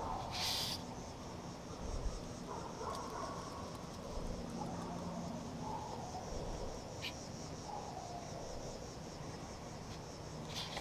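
Steady chorus of insects chirping, with a short hiss about half a second in.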